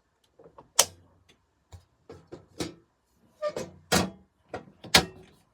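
Sharp knocks and clatters of an electric water heater's thermostat access covers and insulation being put back in place: a run of separate knocks, the loudest about a second in and near the end.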